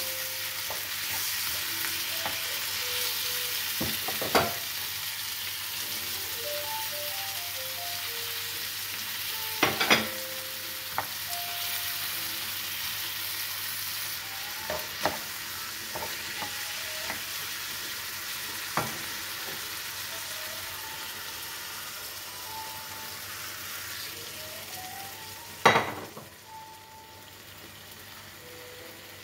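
Chopped tomatoes and peppers sizzling in a frying pan as they are stirred with a wooden spoon, with now-and-then knocks of the spoon against the pan. The sizzle eases in the second half, and one loud sharp knock comes near the end. A faint tune plays underneath.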